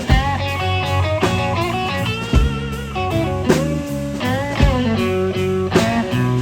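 Live blues band playing a slow blues: electric lead guitar with bent notes and wide vibrato over bass and drums, the drum hits landing roughly once a second.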